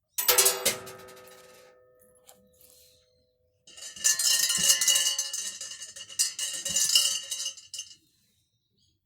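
Coins tossed into a wooden shrine offering box: a few quick clinks with a ringing that fades over a couple of seconds. Then a shrine bell (suzu) shaken by its rope, jangling steadily for about four seconds and stopping.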